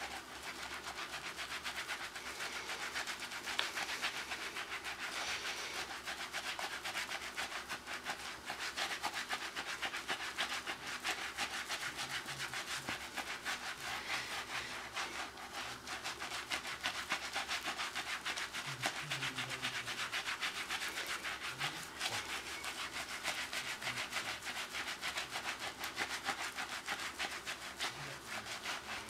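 Hands being scrubbed hard, skin rubbed with fast, steady back-and-forth rasping strokes.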